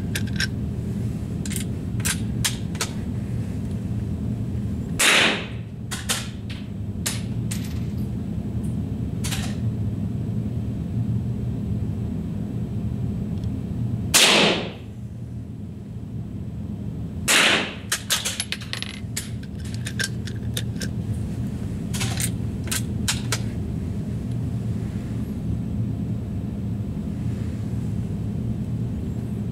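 Three rifle shots, the first about five seconds in and two more about three seconds apart near the middle, each with a short echo. Lighter clicks and knocks in between, over a steady low hum.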